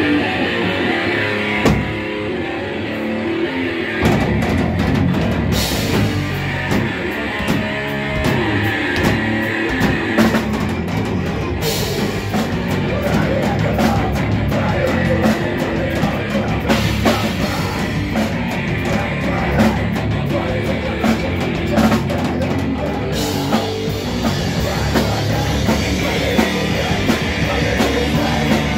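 Live heavy rock band playing: distorted electric guitar, drum kit and a shouted, screamed lead vocal. The full drum beat comes in about four seconds in.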